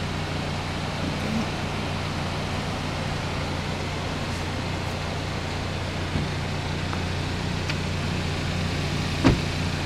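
A car running: a steady low drone of engine and road noise, with a short knock about nine seconds in.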